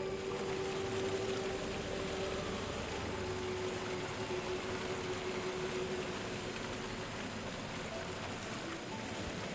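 Ambient background music holding one long note under a steady, even rain-like hiss that starts and stops abruptly.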